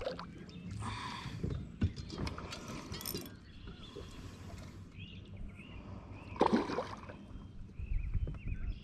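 Hooked fish being played beside an aluminium fishing boat: scattered water splashes and handling noises, the loudest a short splash about six and a half seconds in, over a low steady hum.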